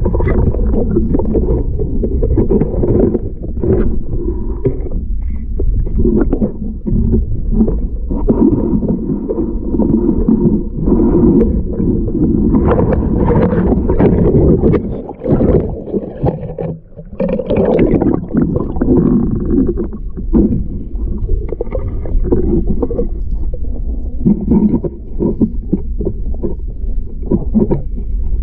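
Muffled underwater noise picked up by a submerged camera: low rumbling and sloshing of water around the housing as a diver swims, broken by frequent small knocks.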